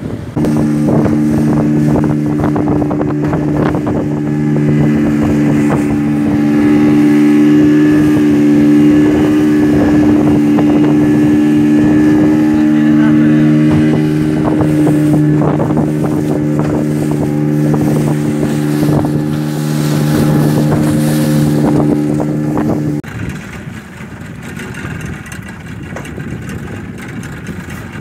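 Small fishing boat's outboard motor running at a steady speed, heard from on board with wind and water noise. It stops abruptly near the end, leaving wind and sea noise.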